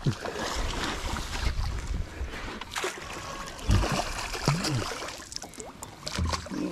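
Smallmouth bass being reeled to the side of a boat on a spinning rod: water splashing beside the hull, with rod-and-reel handling noise and a dull thump about halfway through.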